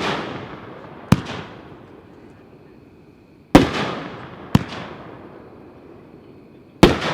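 Shockwave 'Free Energy' 10-shot firework cake firing: loud sharp bangs in pairs about a second apart, each trailing off in a long echo, with the pairs coming roughly every three and a half seconds.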